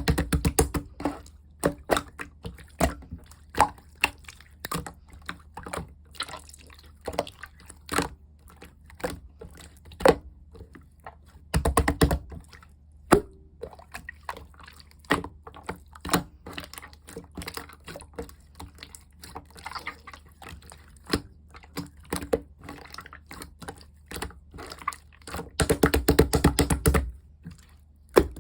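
Slime being squished and poked by hand, making wet, sticky clicks and pops, with two runs of rapid crackling clicks, one about twelve seconds in and one near the end.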